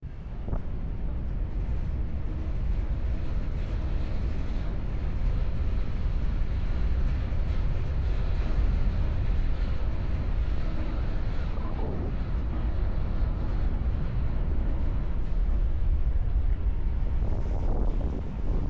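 Steady low rumble of wind buffeting the microphone aboard a ship at sea, with the rush of the sea beneath it.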